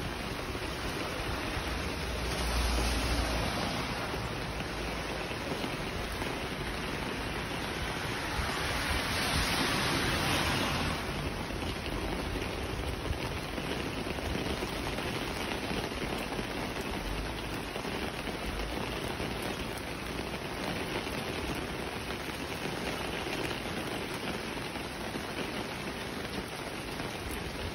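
Heavy rain falling on a wet street and pavement, a steady hiss that swells louder twice, briefly a few seconds in and for a few seconds near the middle.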